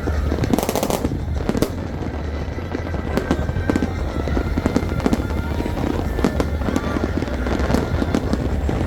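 Aerial fireworks display going off continuously: a dense run of sharp bangs and crackles, with a loud burst of crackling a little over half a second in.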